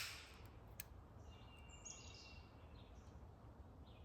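Near silence: the tail of an air pistol shot dies away at the very start, then faint outdoor background with a faint bird chirp about a second and a half in.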